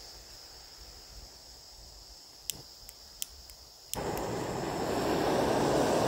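Screw-on gas canister camping stove: a soft hiss of gas and a few sharp clicks, then the burner catches suddenly about four seconds in and burns with a steady rush that slowly grows louder, pushing out a lot of gas.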